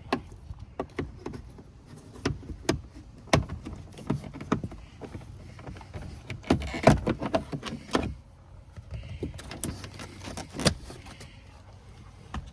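Irregular clicks, knocks and light rattles of hand tools and fasteners being worked on a pickup truck's dashboard, with the loudest cluster of knocks about seven seconds in.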